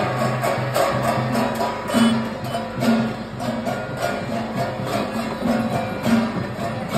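Music with a steady beat of drums and jingling percussion, the rhythm of devotional procession drumming.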